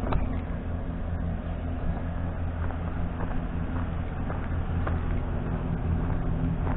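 An engine running steadily at a low, even pitch, with light sharp knocks at irregular intervals over it.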